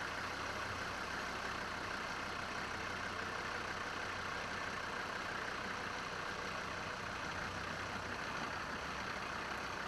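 Off-road vehicle's engine running steadily at low speed, a constant low hum under a broad even noise.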